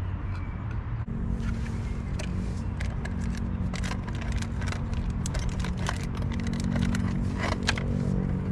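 Many sharp clicks and scrapes as a small plastic case is opened and handled, over a steady low hum that starts about a second in.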